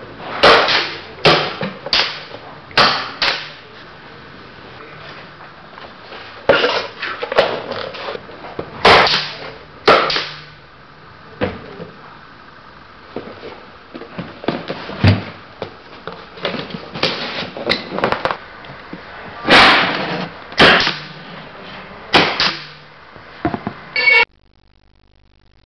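Pneumatic staple plier firing staples through corrugated cardboard box flaps: a long irregular series of sharp clacks, some trailing off briefly, with quieter handling noise between them. The sound stops suddenly near the end.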